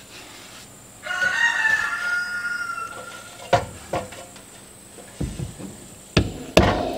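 A rooster crows once, a wavering call about two seconds long. In the second half come a few sharp knocks, the last ones as a mallet strikes a 4-inch PVC pipe being driven into a rubber Uniseal tank adapter.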